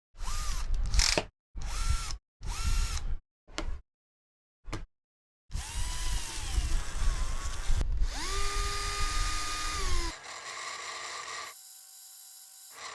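Small electric drill motor switched on in several short bursts, its whine climbing in pitch at each start. It then makes a longer run in which the pitch dips and recovers, as it does when the bit takes load, and ends with a quieter, steady hum.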